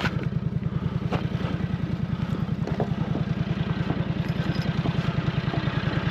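A steady, rapid low mechanical throb, about a dozen pulses a second, like an engine running, with a few faint clicks and clatter over it.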